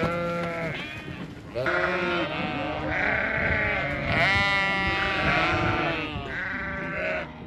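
A crowd of ewes and lambs bleating over one another, many overlapping calls of different pitches, from deep to high.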